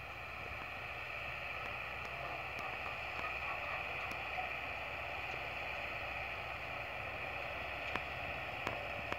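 Tractor engine running steadily as it pulls a working manure spreader that is throwing cattle manure out behind, an even drone with no change in speed. Two sharp ticks stand out near the end.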